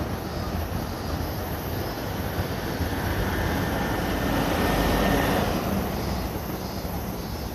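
A vehicle passing close by in city traffic: a broad rumble that swells to its loudest about five seconds in and then fades, with a faint whine over it.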